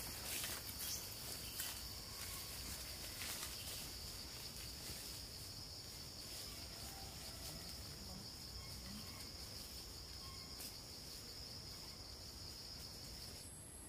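Insects chirring steadily at one high pitch, with a few light taps in the first few seconds. Shortly before the end the chirring cuts off and a higher, thinner one takes over.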